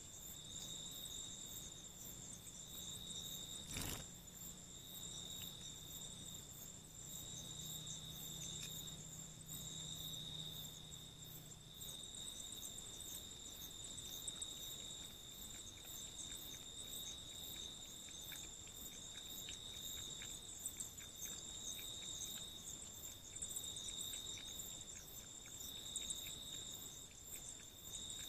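A night insect chorus: a steady, high, unbroken trill at two pitches. A single sharp click comes about four seconds in, and faint small ticks are scattered through the second half.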